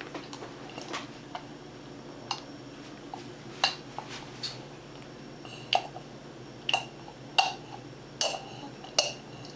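A baby sucking and swallowing from a plastic sippy cup: a string of short sharp clicks, a few scattered at first, then coming about once a second in the second half, some with a brief high squeak.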